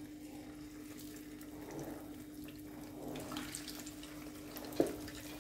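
Batter-coated chicken drumsticks sizzling and crackling in hot oil as they go into the pan, the frying growing busier after a second or so. A single sharp knock near the end, over a steady low hum.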